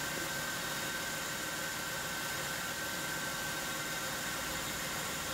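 Steady, even hum and hiss with a faint high-pitched whine running through it.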